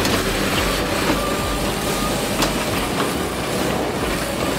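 Heavy machinery running: a steady mechanical rumble and clatter, with a couple of sharp knocks.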